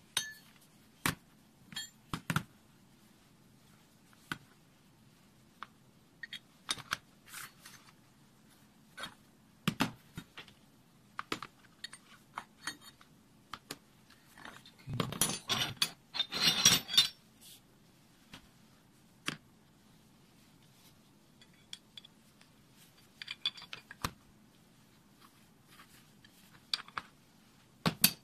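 Steel hook spanners and a slotted steel lock nut being handled: scattered clicks and clinks of metal tools picked up, set down and fitted together, with a busier stretch of clattering about halfway through and again at the end.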